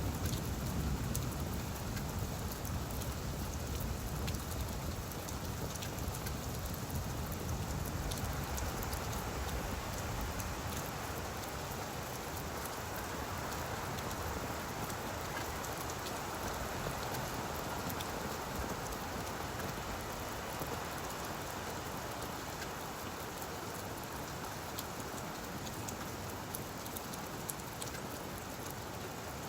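Steady rain falling on leaves, a dense patter of many individual drops. A low rumble at the start dies away over the first ten seconds or so.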